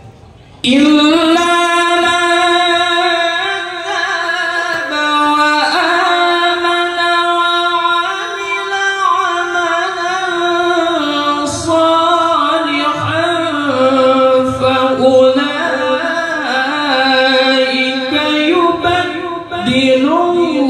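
A young male qari reciting the Qur'an in the melodic tilawah style into a microphone, in a high voice. It comes in about a second in and holds long notes, then moves through wavering ornamented turns.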